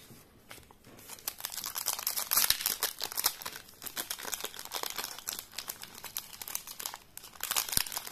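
Foil wrapper of a Yu-Gi-Oh booster pack crinkling as it is handled and torn open by hand, a dense rapid crackle starting about a second in.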